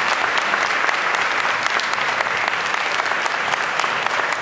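A roomful of people applauding steadily, a dense patter of many hands clapping.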